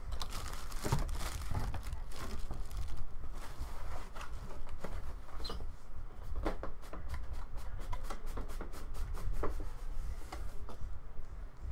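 Turntable packaging being handled and unpacked: plastic wrap and foam crinkling and rustling, with many light irregular clicks and taps.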